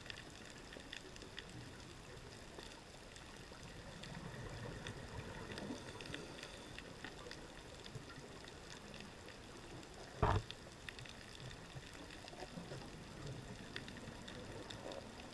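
Faint underwater ambience over a coral reef, picked up through a diving camera's housing: a low steady wash with scattered faint crackling clicks, and one brief louder burst about ten seconds in.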